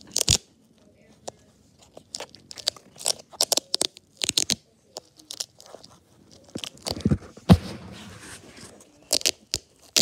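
A nylon handcuff case being worked by hand: a string of sharp crackles and clicks as its Velcro flap is pulled and pressed and its metal snap is forced shut. There is a heavier thump about three-quarters of the way through.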